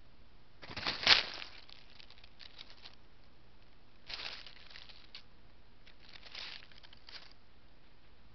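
Cats scuffling in dry leaf litter right at a trail camera: short bursts of crackly rustling, the loudest about a second in and ending in a bump, with more bursts in the middle and near the end.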